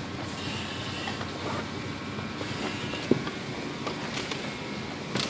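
Steady rumbling noise with a few sharp knocks, one about three seconds in and another near the end, as a firefighter in turnout gear and air pack crawls along a hose line through a maze of PVC pipe and wooden frames, his gear scraping and bumping against it.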